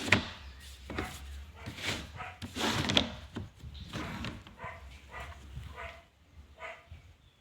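A dog barking and yelping repeatedly, the barks thinning out after about six seconds.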